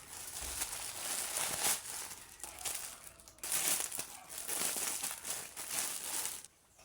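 Crinkling and rustling in uneven bursts, as of something being handled, stopping suddenly near the end.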